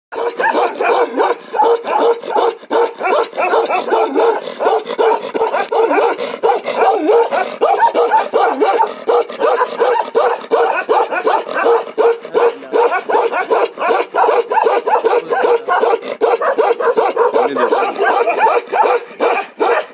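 Bakarwal livestock guardian dog barking in a rapid, unbroken string of several barks a second: the one-breath bark.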